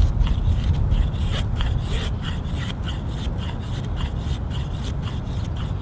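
A Battle Horse bushcraft knife shaving thin curls down a wooden stick to make a feather stick: a run of short scraping strokes, about two to three a second.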